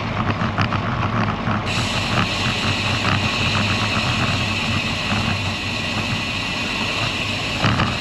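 Riding noise on a moving road bicycle: wind on the microphone over a steady low rolling hum, with a loud high hiss that comes in suddenly about two seconds in and holds.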